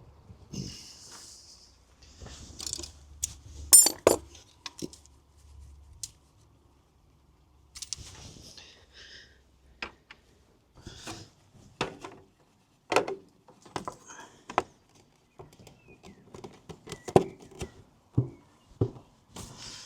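Irregular clinks and knocks of metal tools and parts being handled during motorcycle work, with one loud ringing metallic strike about four seconds in.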